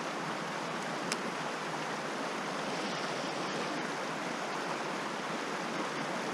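Steady rushing of creek water, with a single short click about a second in.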